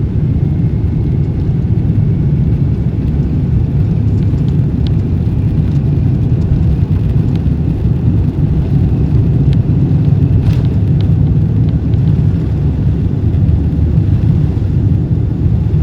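Steady low roar of a jet airliner in flight, heard from inside the cabin, with a few faint clicks over it.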